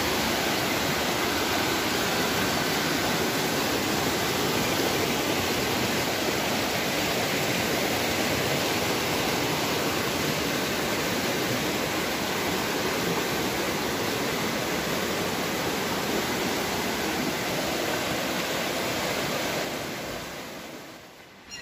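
Flood-swollen muddy stream rushing fast over rocks: a steady, loud rush of water that fades out near the end. The stream is in spate after hours of torrential rain.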